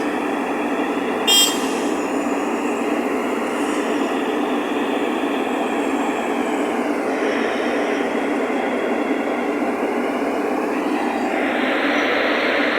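Heavy construction vehicles' diesel engines running steadily, with a short high-pitched beep about a second and a half in. The engine noise grows louder and harsher near the end.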